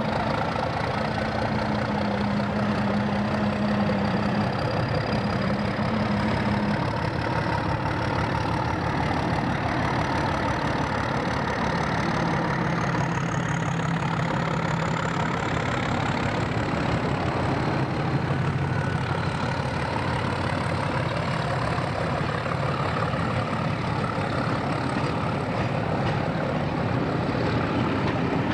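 A pair of Class 31 diesel locomotives with English Electric engines, running steadily and then pulling a charter train away from the platform. The engine note changes about twelve seconds in as they get under way.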